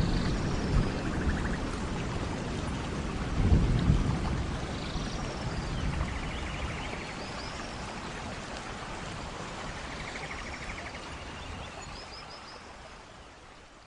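Thunderstorm in a forest: steady rain hissing while a roll of thunder rumbles low, loudest about three and a half seconds in, then dies away. The whole sound fades out near the end.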